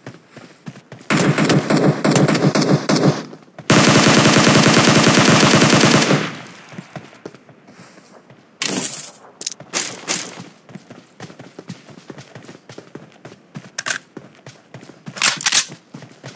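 Bursts of rapid sharp cracks or bangs. The longest and loudest burst comes about four to six seconds in, with shorter bursts before and after and scattered single cracks in between.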